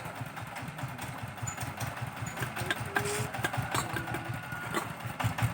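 Small engine running steadily at idle, with a fast, even low thumping beat and a few faint clicks over it.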